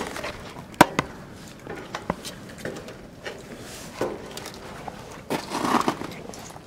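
Irregular footsteps and sharp knocks from boots on a locomotive's metal steps and floor as someone climbs aboard. A longer rustle of clothing and handling comes about five seconds in.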